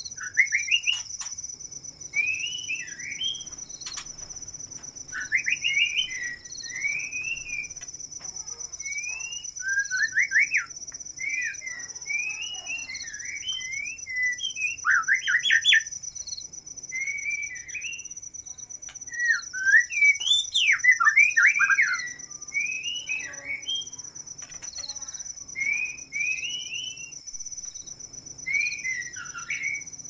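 White-rumped shamas (murai batu), a courting male and female, calling back and forth in short rising and falling whistled phrases that come in quick runs with brief gaps. A steady high cricket trill runs underneath.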